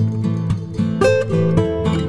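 Background music: acoustic guitar playing picked and strummed chords.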